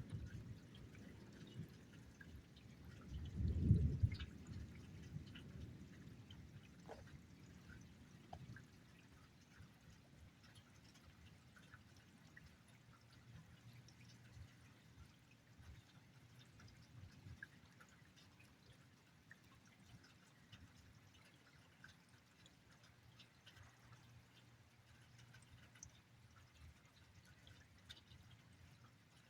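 Faint rain dripping and pattering, with a brief low rumble of thunder swelling and fading about three to four seconds in.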